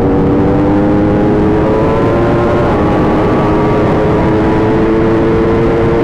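Yamaha R1's inline-four engine pulling under wide-open acceleration, its pitch climbing steadily, then dropping sharply about two and a half seconds in as it shifts up a gear before climbing again.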